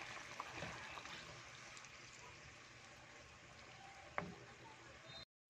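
Chicken feet simmering in sauce in a wok: a faint, steady bubbling hiss, with a single light knock about four seconds in.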